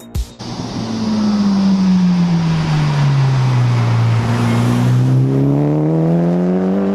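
Mitsubishi Lancer Evolution 6.5 Tommi Makinen Edition's turbocharged 4G63 four-cylinder driving: its engine note falls for about four seconds, then climbs again near the end, over a steady rush of road noise.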